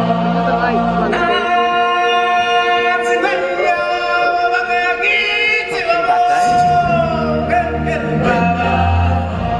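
Choir of stage-show singers holding long notes in harmony. A low backing drops out about a second in and comes back a few seconds before the end.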